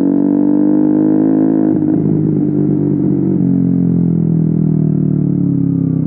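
KTM Duke 125's single-cylinder four-stroke engine heard close to its Akrapovic silencer and GPR decat link pipe, the note falling slowly as the revs drop. About two seconds in the exhaust note turns rougher for a second and a half, then smooths out again.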